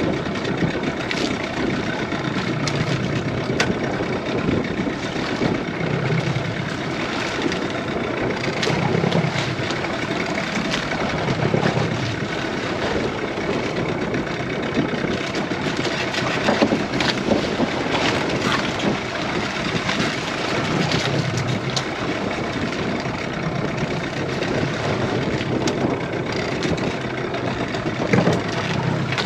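Boat engine idling steadily, kept running to hold the boat against a strong current, with water and wind noise over it.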